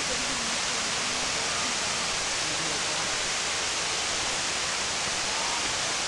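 A tall waterfall's falling water rushing in a steady, even hiss.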